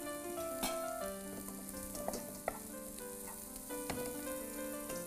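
Garlic and mint sizzling in butter in a frying pan, with a few light metal clinks from a slotted spoon in a steel colander, over soft background music.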